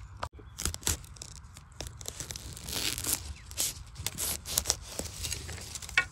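A knife blade and fingers digging and scraping through loose soil and dry litter around a bamboo shoot: a run of crunching scrapes and short clicks, busiest around the middle.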